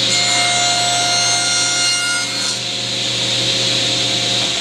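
Table saw running while its blade cuts an angled groove about half an inch deep into the end of a hard maple block; the cutting ring lasts about two and a half seconds, then the blade spins free.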